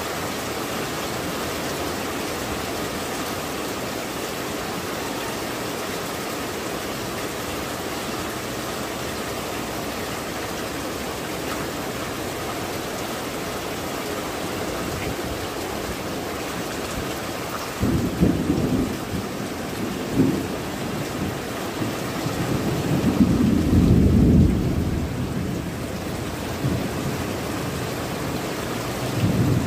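Steady heavy rain falling on clay-tiled roofs and garden foliage, an even hiss. About two-thirds of the way in, low rumbles break in: a sudden one, a shorter one, then a longer, louder rumble near the end.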